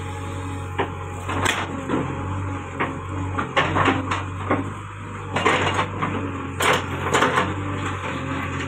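JCB backhoe loader's diesel engine running steadily while its bucket digs into earth and a neem tree root, giving a string of crunching knocks and scrapes. They come in loud clusters between about a second and a half in and seven and a half seconds in.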